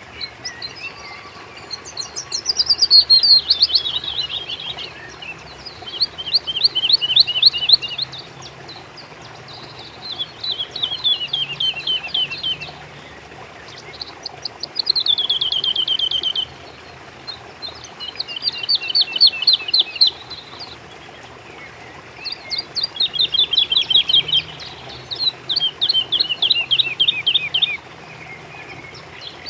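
A songbird singing: repeated phrases of quick notes that fall in pitch, each phrase about two seconds long and coming every three to four seconds, about seven in all.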